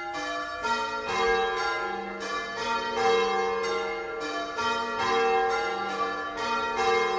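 Church bells being rung in changes by a team of ringers, the bells struck one after another in a steady, even rhythm, each note ringing on into the next. The bells are calling the village to Sunday worship.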